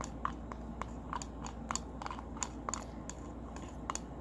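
Glue with food colouring being stirred in a bowl for slime: a run of sharp, irregular clicks, about three a second, over a steady low hum.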